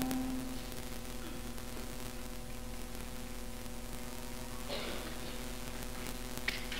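The last held note of the choir and orchestra dies away in the first half-second, leaving a steady electrical hum on the old recording. A faint rustle comes about five seconds in and a click near the end.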